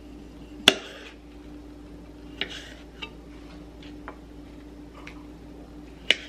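Chef's knife cutting cherry tomatoes and striking the chopping board: a handful of separate sharp clicks, the loudest about a second in and another near the end, over a faint steady hum.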